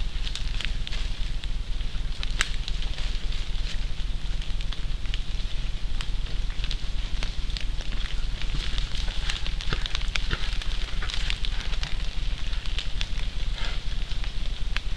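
Rain falling at night, heard as many irregular sharp drip ticks and crackles over a steady low hum.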